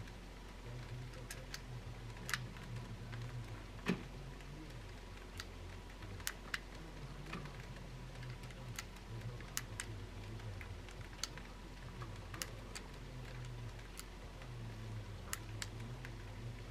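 Small, sharp clicks at irregular intervals, a dozen or more, as .32 S&W Long cartridges are pushed one by one into a Nagant revolver's cylinder and the cylinder is turned chamber by chamber.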